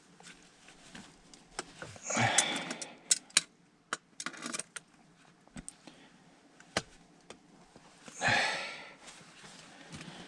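Scattered sharp clicks and clinks of hand tools on the furnace's gas valve and pipe fittings during a tight disassembly. Two longer rushes of noise come about two seconds in and again about eight seconds in.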